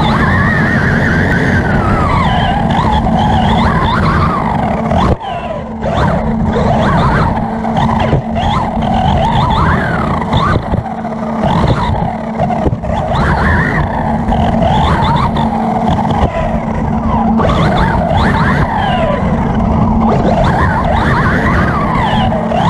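Onboard sound of a 1:8-scale electric R/C buggy racing on dirt: the Hobbywing 3600kv brushless motor whines up and down in pitch with the throttle over the rumble of the drivetrain, tyres and dirt. The sound dips briefly about five seconds in.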